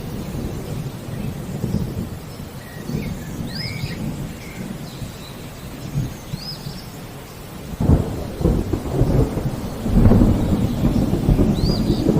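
Thunder rumbling over steady rain, with a sudden loud clap about eight seconds in and heavier rumbling after it. A bird gives a short high chirp about every three seconds.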